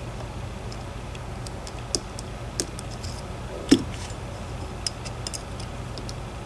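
Small, sharp metal clicks and ticks of a dimple pick and tension tool working the pins of a DOM ix 10 dimple lock, spaced irregularly, with the loudest click a little under four seconds in. A steady low hum runs underneath.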